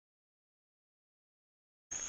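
Dead silence: the sound track drops out entirely, with a hiss of night insects returning only at the very end.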